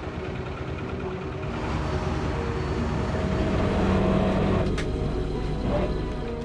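Boat engine running steadily under way, growing louder about four seconds in and easing off near the end.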